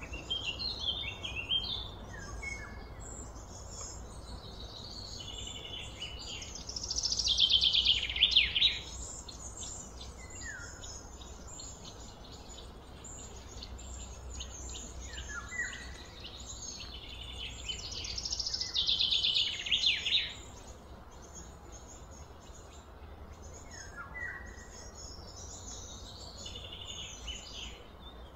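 Wild birds singing, with two loud fast runs of repeated high notes, one about a quarter of the way in and one about two-thirds through, and short chirps in between. A steady low rumble runs underneath.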